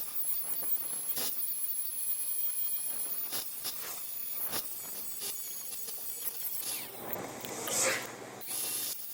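Tool work on a seized, rusted anti-roll bar link: irregular metal knocks and scrapes over a steady high hiss, with a louder noisy stretch near the end, as the stuck link is forced free.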